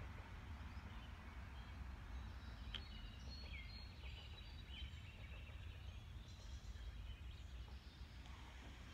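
Quiet outdoor ambience: a steady low rumble with a few faint, brief bird calls in the middle.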